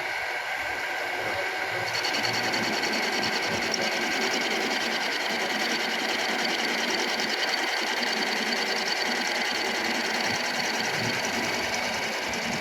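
Milling machine running steadily, with a fast, even mechanical rhythm. About two seconds in, a higher, rapidly pulsing hiss joins in and keeps on.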